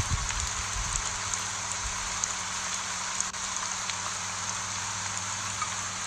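Steady rain falling on broad taro leaves: an even hiss with scattered drop ticks, and a few low thuds in the first second.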